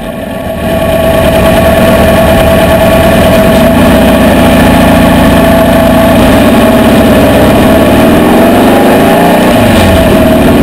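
Sand rail engine running as the buggy drives over the dunes. It gets louder about a second in, and its pitch rises and falls a few times near the end.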